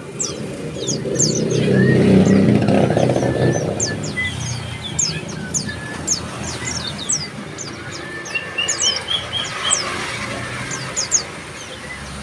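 Bar-winged prinias calling in a busy chatter of many short, high, falling notes, with a few lower notes mixed in. A low rumble runs under them for the first four seconds, loudest about two seconds in.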